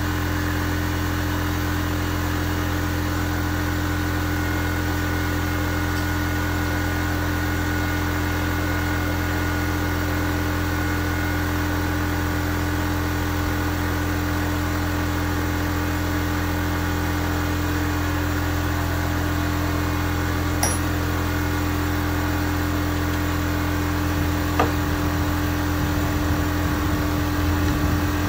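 Steady machine drone with a low hum and a few fixed tones, unchanging throughout, with two light clicks past the middle.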